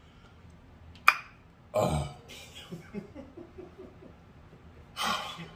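A man burps once, on a full stomach after a big meal: a short burp that falls in pitch, just after a sharp click. A breathy exhale comes near the end.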